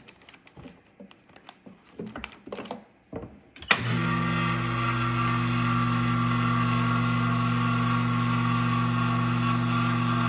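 Light handling noises, then a sharp click about three and a half seconds in as the AFES VAC 100 chamber vacuum sealer's pump starts. It runs with a steady, even hum, pulling a full vacuum on a bag.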